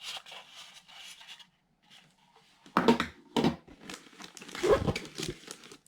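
Plastic packaging crinkling and rustling as kit parts are unwrapped and handled, with a few louder knocks of items being set down or moved.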